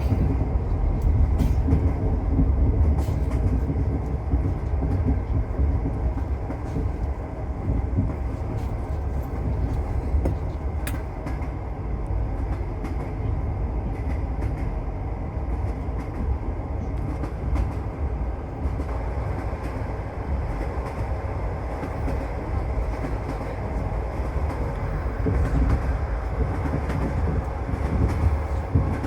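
Train wheels running on the rails, heard from inside a moving railway carriage: a steady low rumble with faint clicks over the rail joints.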